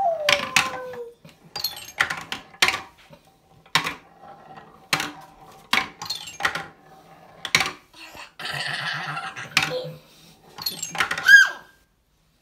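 Wooden balls dropping down a wooden ball-run toy, clacking sharply on the wooden rails and ringing on the small xylophone at the bottom, a clack every second or so. A short falling voice at the start and a brief high squeal near the end.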